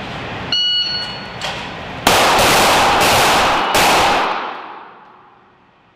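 A short high tone about half a second in, then a quick string of about four 9 mm M17 pistol shots (SIG Sauer P320) starting about two seconds in. The shots echo off the walls of an indoor range, and the echo fades over about a second.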